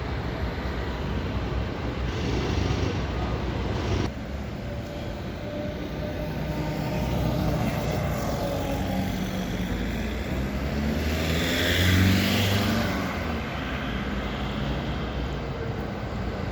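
Street traffic: cars driving past with a steady rumble, one vehicle passing louder about twelve seconds in.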